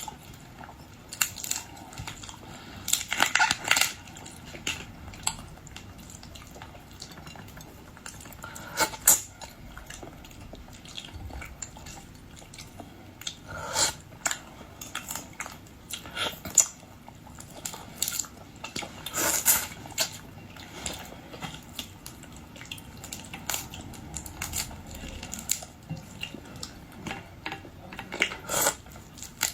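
Close-up eating of boiled shrimp and lobster: irregular crunches and cracks of shells, with occasional clinks of utensils or dishes.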